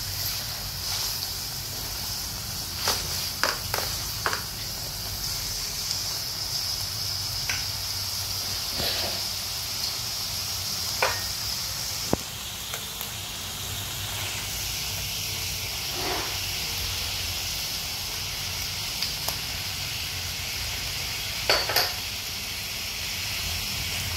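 Lemongrass-coated pork cutlets sizzling steadily in hot oil in a metal wok. A few sharp clicks and taps come as chopsticks and a spatula turn the pieces against the pan, in a cluster about three to four seconds in, around eleven to twelve seconds, and twice near the end.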